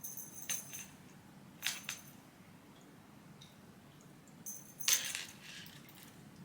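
Light clicks and rattles of small hard objects being handled, in three short bursts, the last about five seconds in and the loudest.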